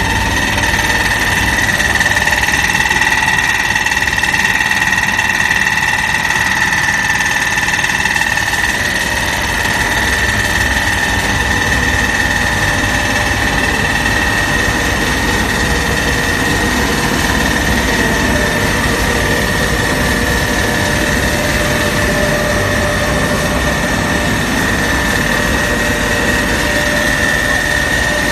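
Rubber crumb grinding mill running steadily: a loud, even machine noise with a constant high whine over it.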